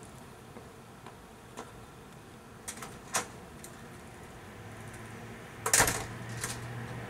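A glass storm door being opened and closed: a latch click about three seconds in, then the door shutting with a clattering bang near six seconds, the loudest sound, with a lighter knock just after.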